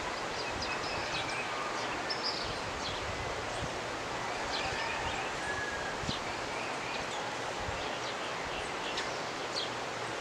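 Jimenoa River running as a steady rush of water, with birds chirping and calling over it throughout.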